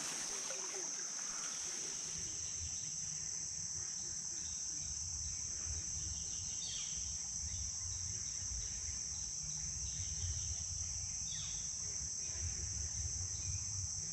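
Steady, high-pitched chorus of insects, with a low rumble coming and going underneath.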